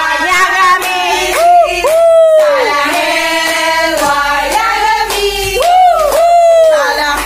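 A group of women singing together, with hand clapping.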